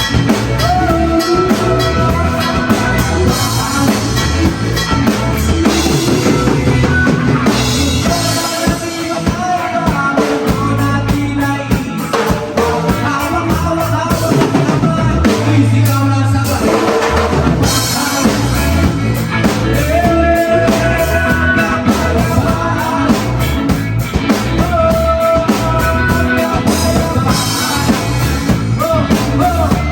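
Rock band playing a song on drum kit, bass and guitar, with a sung melody over it.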